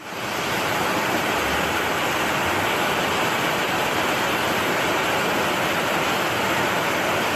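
Tsunami surge of floodwater rushing past houses: a steady, even rush of turbulent water, fading in at the start.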